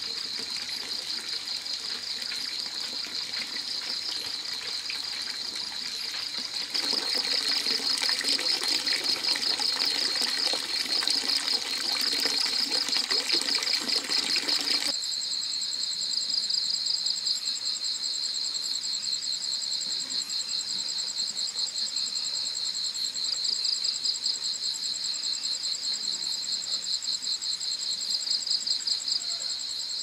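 Insects trilling in a steady, fast-pulsing chorus. A rushing noise joins it for several seconds in the middle, and about halfway through the sound changes abruptly as a second, higher trill comes in.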